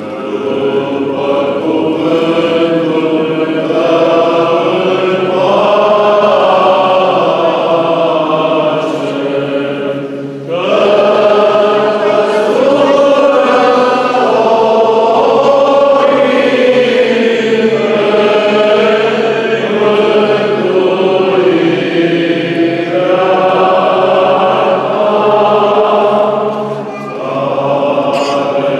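Orthodox church choir chanting a hymn of the litia, several voices together in a slow, unaccompanied line. There are short breaks for breath about ten seconds in and again near the end.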